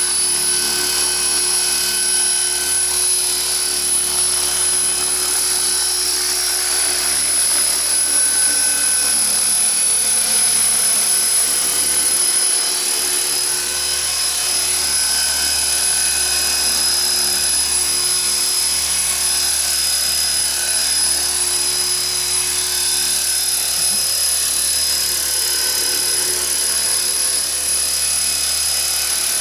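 A radio-controlled model helicopter hovering, its motor and rotor running steadily with a high-pitched whine.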